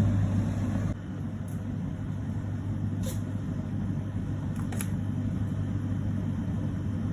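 Bosch Series 4 heat pump clothes dryer running with a load of throw rugs: a steady low hum under a rumble of the turning drum, with a few faint ticks.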